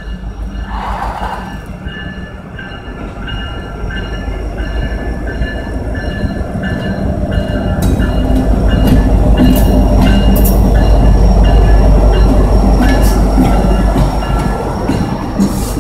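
Diesel freight locomotive approaching and passing close by. Its deep engine rumble builds to a peak about eight to thirteen seconds in. Sharp clacks of wheels over the rail joints follow as the freight cars roll past, with a thin, steady high whine throughout.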